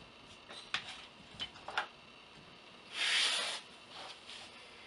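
Handling noise from rifle parts in a foam-lined hard case: a few light clicks and knocks, then a short scraping rub about three seconds in, the loudest sound.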